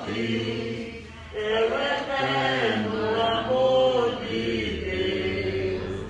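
Voices singing a slow Portuguese offertory hymn, with long held notes that rise and fall.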